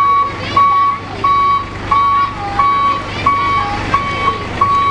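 A truck's reversing alarm beeping at one steady pitch, about one and a half beeps a second, over the low steady hum of a running diesel truck engine.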